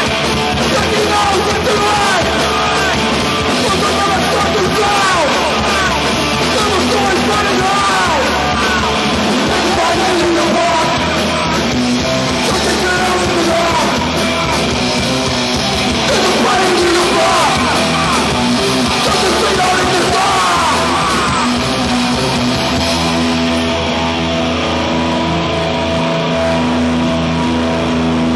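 Punk rock band playing live at full volume, with distorted electric guitar and shouted vocals. About 23 seconds in, it settles into steady held notes.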